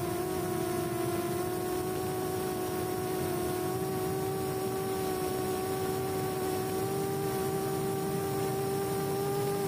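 Micro quadcopter's four brushless motors (RCX NK1306 4000KV) and 4-inch props whining steadily in flight, holding a near-steady pitch that rises slightly near the end.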